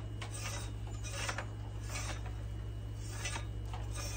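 Starlink cable being pulled through the metal tube of an old satellite-dish mounting arm, rubbing against it in a series of short swishes, roughly two a second and irregular.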